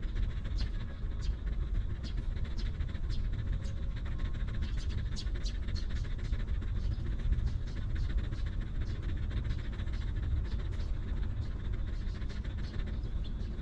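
Mother dog panting over a steady low rumble, with short sharp high ticks or chirps scattered irregularly through it.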